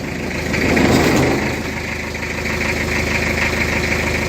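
Toyota Hiace truck's engine idling steadily, with a brief rise in level about a second in.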